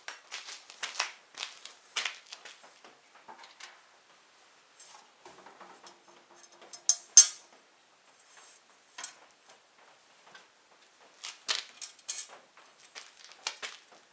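Small metal hardware clinking and clattering as it is handled, in irregular clusters of sharp clicks, with one louder clank about seven seconds in.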